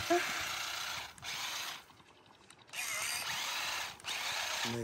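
Small electric motors of a battery-powered RC stunt car whirring as its wheels spin and churn in loose wheat straw: the car is stuck and cannot drive on the straw. The whirr stops for about a second near the middle and drops out briefly twice more.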